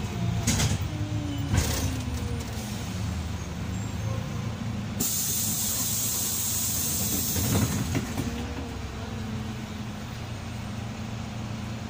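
Karosa B 961E articulated city bus heard from inside the cabin, its diesel engine running steadily, with a loud hiss of compressed air from about five to eight seconds in.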